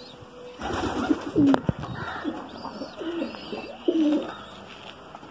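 Domestic pigeons cooing, several low calls one after another from the flock. A brief sharp click comes about a second and a half in.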